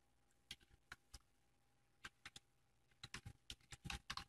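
Faint computer keyboard typing: a few scattered keystrokes at first, then a quicker run of keys from about three seconds in.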